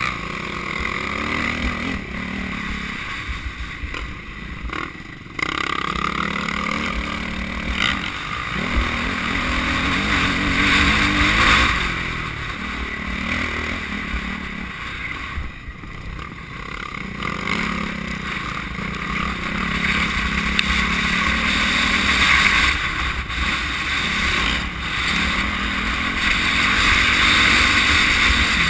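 Motocross bike engine heard from an onboard camera, its pitch rising and falling in repeated runs of a few seconds as the throttle is opened and closed and the gears are shifted, over heavy wind noise on the microphone.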